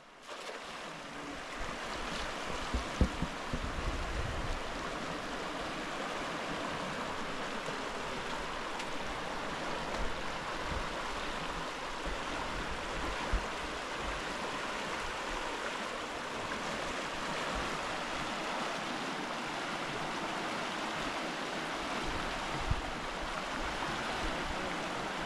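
River water rushing steadily over rocks, with a few brief knocks, the loudest about three seconds in.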